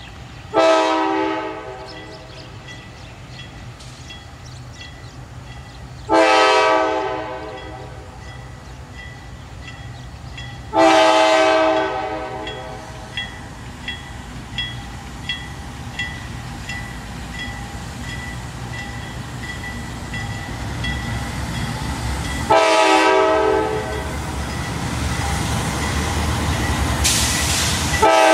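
CSX GE C40-8 locomotive's multi-note air horn sounding for the grade crossing in a series of long blasts, four in full and a fifth starting at the very end. Between blasts the crossing's warning bell rings steadily, and the diesel rumble of the approaching locomotives grows louder toward the end.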